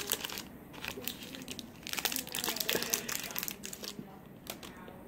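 Clear plastic packaging crinkling and clicking as two makeup markers are handled and pulled out of it: a busy run of small crackles and snaps.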